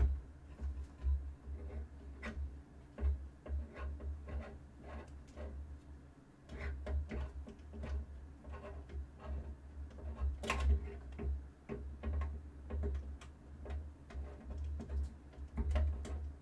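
Phillips screwdriver driving small screws to fasten a power supply into a metal PC case: irregular small clicks and metallic ticks, over a low hum.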